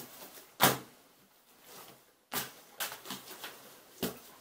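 Homemade borax slime being lifted and slapped down on a plastic tabletop: a handful of short, sharp smacks with softer sticky rustles between them.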